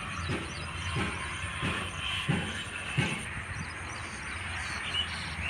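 Vishal 435 combine harvester running, a steady low machine hum with a hiss above it. A regular knock comes about every 0.7 seconds for the first three seconds, then fades.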